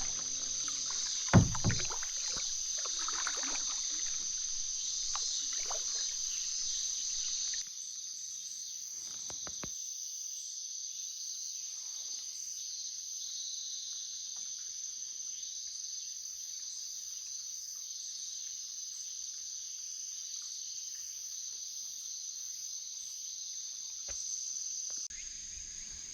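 Water sounds from a Canadian canoe being paddled, with one loud knock on the hull about a second and a half in, over a steady high chirring of insects.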